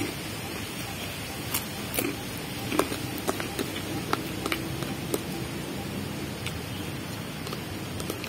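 A metal spoon clicking and scraping in a thin plastic food container as someone eats from it, in scattered sharp clicks at irregular intervals over a steady background hiss.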